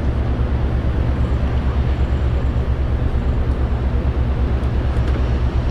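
Ferry's engines running steadily: a loud, deep rumble with a fast, even throb.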